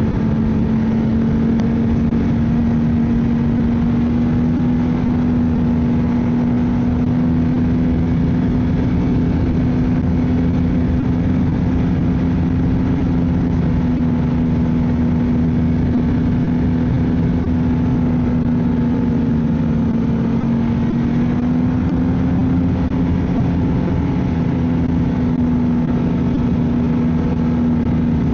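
Ski-Doo snowmobile engine running at a steady trail-cruising speed, its pitch holding nearly constant with slight rises and dips.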